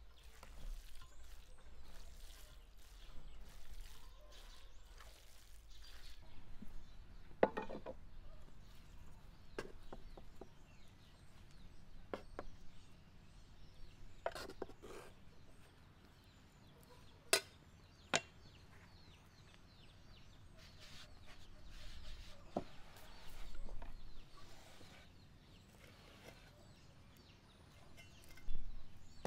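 Food-preparation handling sounds. First a spoon stirs minced-meat filling in an enamel bowl. Then a metal scoop dips into flour and tips it onto a wooden board, with a few sharp clicks and knocks of utensils and bowl.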